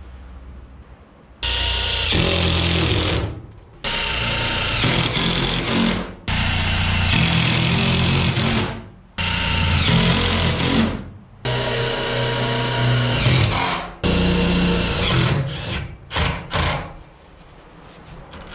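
Cordless drill driving screws into 6-inch black steel stove pipe: about six runs of roughly two seconds each, each starting sharply and trailing off, then several short bursts near the end.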